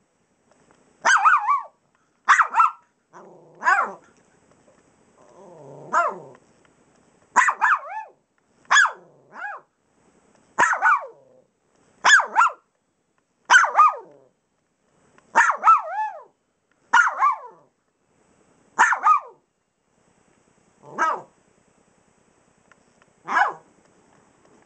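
Small dog play-barking at a pillow, single or paired barks every second or two, with low growling mixed in a few seconds in.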